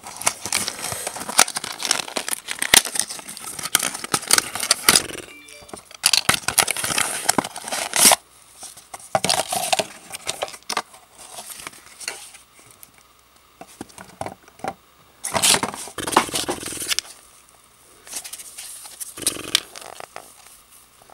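A small cardboard box being torn open by hand, with cardboard and tape tearing and paper packing crinkling in irregular bursts and clicks. It is busiest in the first few seconds and again briefly past the middle.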